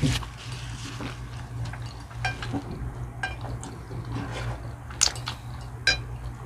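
Cutlery clinking against plates during a meal: a few light, separate clinks with a brief metallic ring, over a low steady hum.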